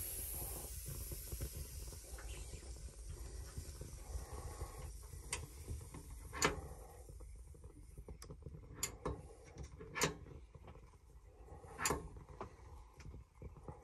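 Pressurized alcohol stove burner flame burning with a low, steady rumbling hiss, flaring too big because the burner was opened too wide. Several sharp metallic clicks and knocks from handling the stove come in the second half, the loudest about six and a half seconds in.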